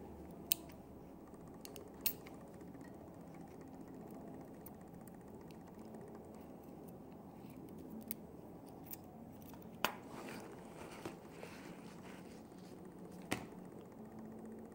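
About half a dozen sharp, irregularly spaced clicks from a metal 12 V toggle flick switch being handled and fitted with its rubber ring.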